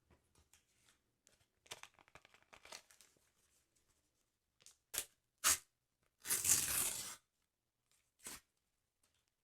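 Paper from a sticker album being torn: light crinkling, then a few short rips and one longer, louder tear a little after six seconds in, with a last short rip near the end.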